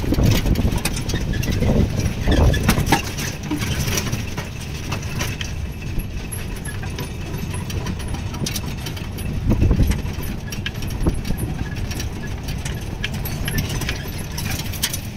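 Old jeep's engine running as it drives a winding road, heard from inside the cab, with frequent small clicks and rattles from the body and fittings.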